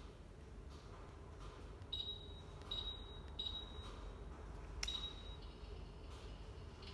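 Electric plasma fireplace's control unit giving four short high beeps, the kind an appliance makes as its buttons or remote are pressed. Faint clicks and a low hum lie under them.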